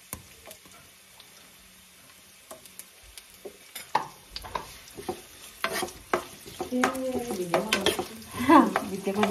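Food frying in a pan. From about four seconds in, a metal spoon stirs and scrapes against the pan, with clicks and knocks that grow busier toward the end.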